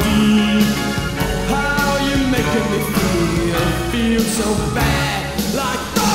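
Alternative rock band recording playing an instrumental passage of electric guitars, bass and drums, with bending guitar notes over a steady beat.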